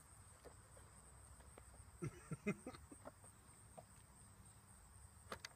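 Near silence outdoors: a faint steady high hiss, a few soft, short vocal sounds about two seconds in, and a couple of light clicks near the end.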